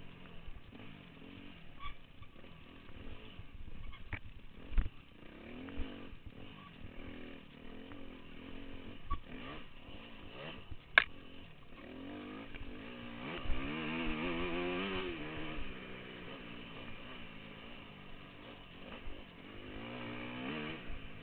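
Off-road dirt bike engine revving up and down as the bike is ridden along a cross-country trail, the revs climbing hard a little past the middle. Sharp knocks are mixed in, the loudest about eleven seconds in.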